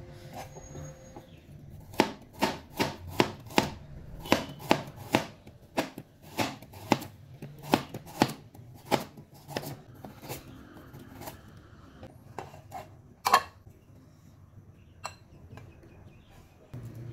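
Chinese cleaver slicing a carrot on a bamboo cutting board: a run of sharp chops, about two to three a second, each blade knocking the wood. The chops then slow to a few scattered knocks on the board, one of them the loudest.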